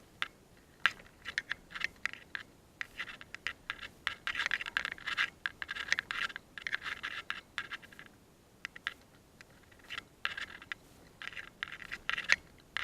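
Irregular scratching and rustling close to the microphone, with scattered sharp clicks.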